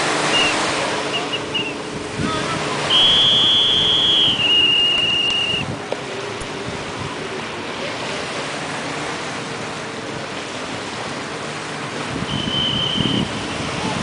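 Sea surf washing ashore with wind buffeting the microphone, a steady rushing noise. About three seconds in, a loud high-pitched tone is held for about two and a half seconds and drops a step in pitch halfway through. A shorter high tone comes near the end, and a few short high chirps sound in the first two seconds.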